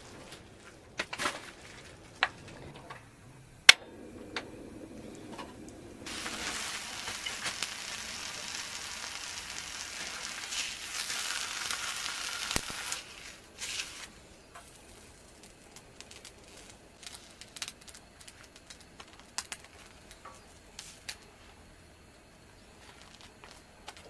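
Sandwich and sliced meat sizzling on a hot griddle pan over a portable gas stove; the sizzle sets in about six seconds in and stops a little past halfway. Scattered clicks and scrapes of a spatula on the pan come before and after it, with one sharp click a few seconds in.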